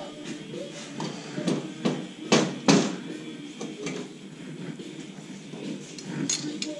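Lengths of steel square tubing set down and knocked against a steel welding table: a handful of metallic clanks, the loudest two close together a couple of seconds in.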